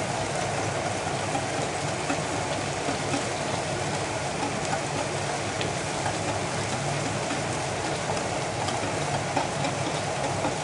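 Meatballs frying in a pan, a steady sizzle.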